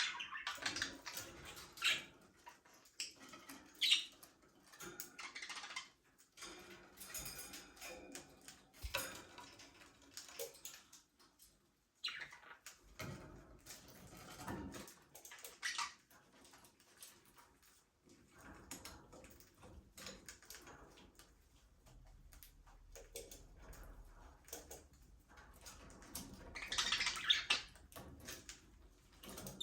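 Budgerigars chirping and chattering in irregular, scattered calls, with a louder flurry of calls near the end.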